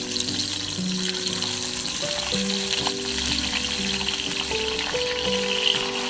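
Sausages sizzling steadily in hot oil in a cast-iron skillet, with piano music over it.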